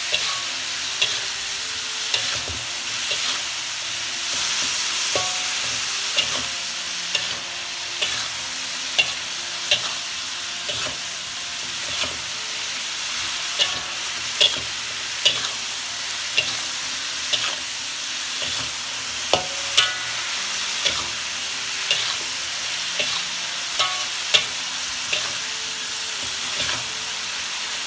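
Long beans sizzling as they are stir-fried in a wok, with a metal spatula scraping and clinking against the wok about once a second.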